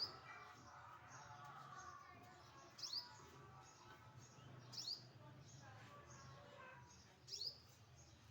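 A small bird gives four sharp, high chirps about two seconds apart.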